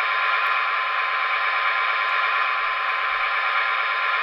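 Paragon 4 sound decoder's EMD GP35 diesel prime mover running steadily, played through the HO-scale model's small onboard speaker, with a constant whine over a hissy engine rumble and no deep bass.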